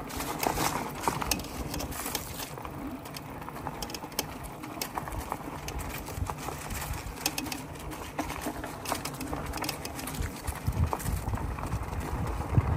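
Fat-tyre electric bikes riding over a rough dirt track: a steady low rumble of tyres on dirt with frequent clicks, knocks and rattles from the bumps.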